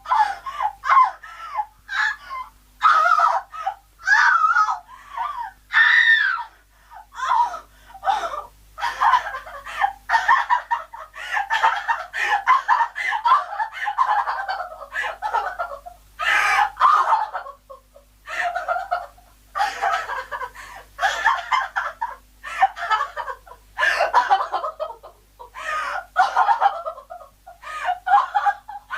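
A woman crying hysterically: wailing sobs broken by short catching gasps, over and over.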